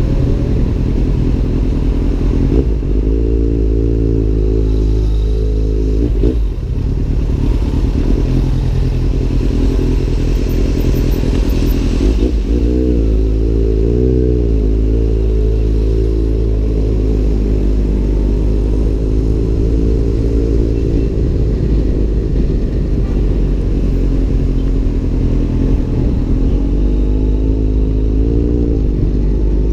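Kawasaki Z800 inline-four motorcycle engine through an Arrow aftermarket exhaust, ridden on the road. The engine note rises and falls several times as the bike accelerates and eases off, with a brief drop in sound a few seconds in.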